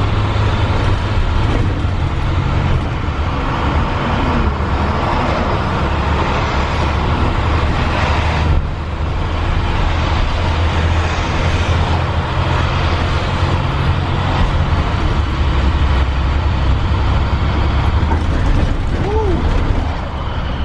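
A vehicle driving at road speed: a steady low engine hum under continuous road noise, with a brief dip about eight seconds in.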